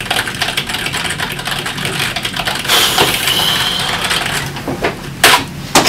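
Fast typing on a computer keyboard: a steady patter of key clicks, with two louder strikes near the end.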